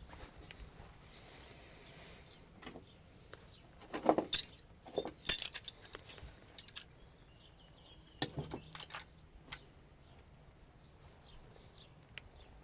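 Scattered metallic clinks and knocks, in two clusters about four and eight seconds in, as metal tools and parts are handled.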